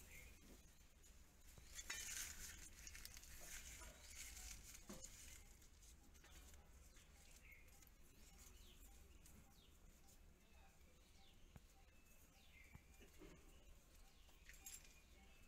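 Near silence: faint room tone, slightly louder for a moment about two seconds in.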